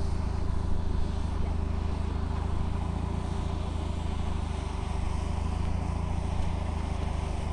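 Avtoros Shaman 8x8 amphibious vehicle's diesel engine running at a steady speed as it drives through the sea, a constant low drone.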